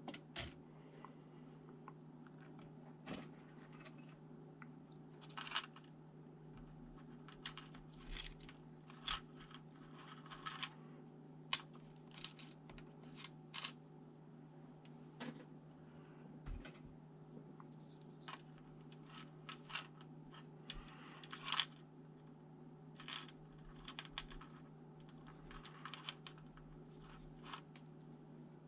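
Irregular small clicks, taps and short scrapes of plastic and metal laptop parts being handled and worked on by hand while a ThinkPad T400 is taken apart, over a steady low hum.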